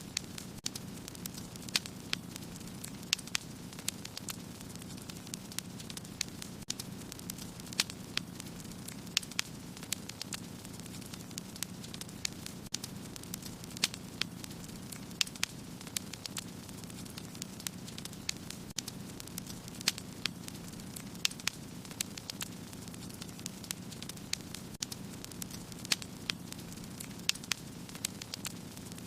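Wood fire burning in a fireplace: a steady low rush of flames with frequent irregular sharp crackles and pops from the burning logs.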